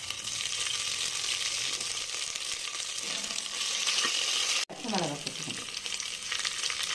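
Ginger-garlic paste sizzling hard in hot oil with whole spices in an aluminium pressure cooker, stirred with a steel ladle. The sizzle drops out for an instant about two-thirds of the way through, then carries on.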